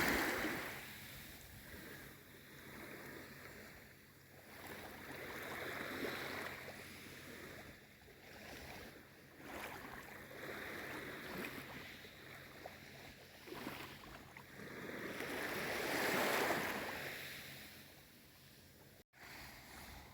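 Calm sea waves washing in and drawing back in slow, gentle surges, the biggest about sixteen seconds in. The sound breaks off for an instant near the end.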